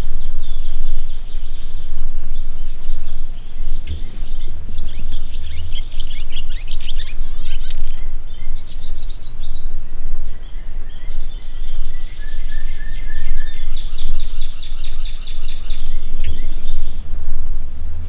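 Songbirds chirping and trilling over a steady low rumble, such as wind on the microphone.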